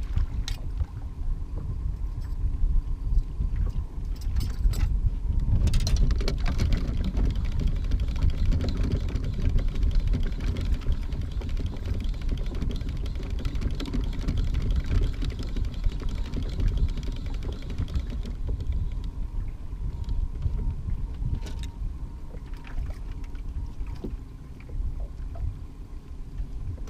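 Wind buffeting the microphone on an open fishing boat, a steady low rumble that swells for a few seconds after the start, with a few sharp clicks and knocks of gear being handled.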